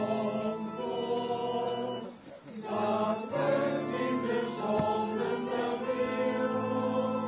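Mixed choir of men and women singing a hymn in long held notes, breaking off briefly about two seconds in before the next phrase.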